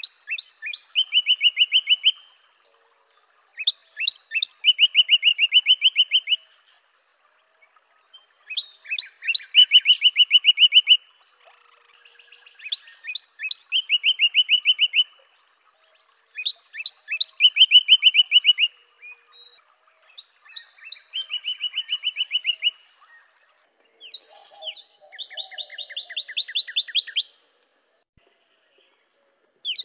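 Northern cardinal singing: about seven repeated phrases, each a few steep down-slurred whistles followed by a fast run of short repeated notes, one phrase roughly every four seconds.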